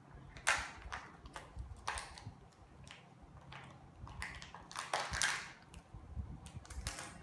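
Crinkling and rustling of a Kinder Joy toy's small plastic wrapper being torn open by hand: a string of irregular short crackles, loudest about half a second in and again around five seconds.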